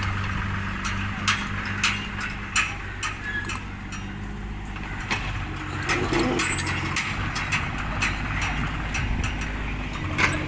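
Hitachi Zaxis 33U mini excavator's diesel engine running steadily while the machine swings round and moves on its tracks, with repeated sharp clicks and knocks over the engine sound.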